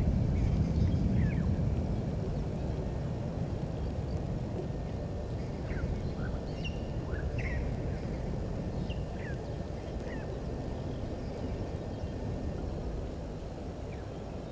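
Scattered short bird chirps, a few each second at times, over a low background rumble that is loudest at the start and eases off over the first few seconds.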